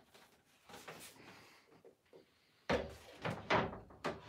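A snowboard being handled and leaned against a wall among other boards. Faint rubbing is followed, from a little under three seconds in, by a few sharp knocks of the board against the wall and the neighbouring boards.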